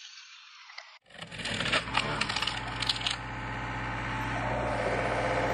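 Faint hiss, then a run of sharp metallic clinks and knocks for about two seconds, followed by an excavator engine running steadily.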